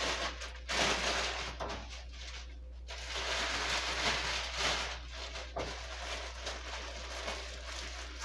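Plastic bread bags rustling and crinkling as they are handled and packed, in stops and starts, the loudest spells about a second in and from about three seconds.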